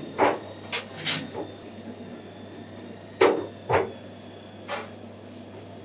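Wooden rolling pin working a stuffed paratha on a floured steel counter: a series of short, sharp knocks and taps, the loudest a little past three seconds in, over a steady low hum.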